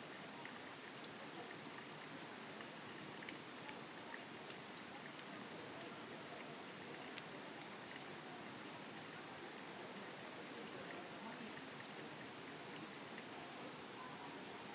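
Steady, faint rush of falling water, with scattered light ticks like drops landing.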